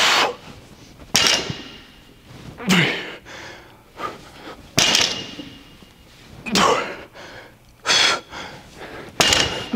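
A man's forceful exhales and short grunts, seven in a row about one every one and a half seconds, with the breath hitting the microphone, as he strains through a set of barbell deadlifts at about 205 lb.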